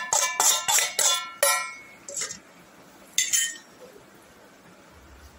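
Steel spoon clinking against steel bowls as roasted gram flour is tapped off it into the mince: a quick run of about eight ringing clinks over the first second and a half, then two more, about two and three seconds in.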